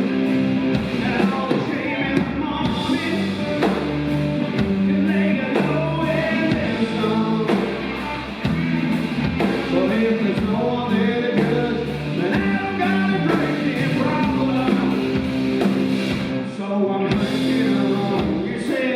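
A live band playing a rock-and-roll number led by guitar, with singing.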